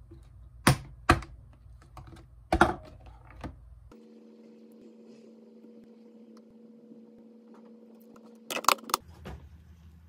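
Tableware being set down on a desk: short hard clacks of a plastic food container and a ceramic bowl. There are three knocks in the first three seconds and a quick cluster of clatter near the end, with a faint steady hum underneath in between.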